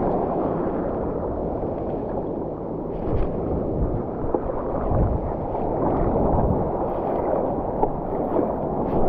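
Water rushing and splashing along a stand-up paddleboard riding a small wave, with wind buffeting the microphone. A few small splashes stand out, one about three seconds in.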